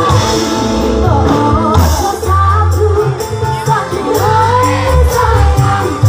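Live band music with a woman singing lead into a microphone through the PA, her melody gliding over a steady beat and bass line.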